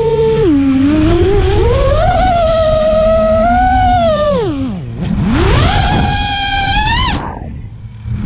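3D freestyle quadcopter's brushless motors and 5-inch props whining, the pitch rising and falling with throttle over a low rush of wind. The whine swoops down almost to nothing about five seconds in, climbs straight back up, then drops away into a brief lull near the end before picking up again.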